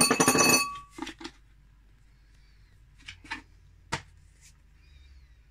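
A ringing clink of kitchenware at the start, then a few light knocks and one sharp tap about four seconds in, as a bowl and a custard powder container are handled.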